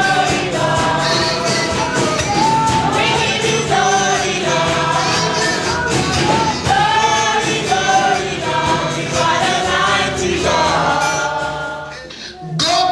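Gospel choir singing a worship song with instrumental accompaniment and a steady percussive beat; the sound dips briefly near the end.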